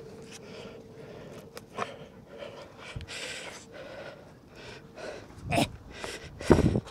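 Breathing and rustling from a person handling a magnet fishing rope with rubber gloves, with two loud bumps near the end.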